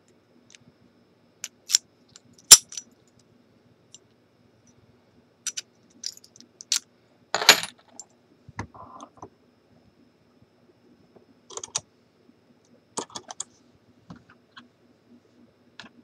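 Sharp metallic clicks and clinks of a Yale dimple padlock and its key being handled: the key going into the keyway and the lock being turned over in the hands, with brief jingles of keys. The loudest click comes about two and a half seconds in, and a quick cluster of clinks follows around seven and a half seconds.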